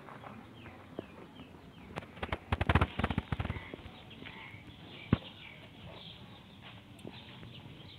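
Small birds chirping faintly in the background, with a quick cluster of sharp clattering knocks about two to three and a half seconds in and a single sharp click about five seconds in.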